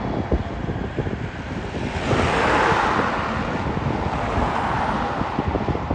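Wind buffeting the microphone, with a vehicle going past: a rushing noise swells about two seconds in and slowly fades.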